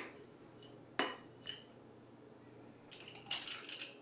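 Stainless steel cookie scoop clinking against a glass mixing bowl as it scoops muffin batter: three sharp clinks with a short ring in the first second and a half. A brief rattle of scraping and clicks near the end, as the scoop is emptied into a paper muffin liner.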